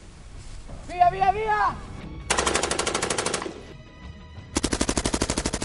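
Two bursts of machine-gun fire, each about a second long with rapid evenly spaced shots of about a dozen a second, the second burst starting about a second after the first ends. It is a film sound effect dubbed over the toy guns.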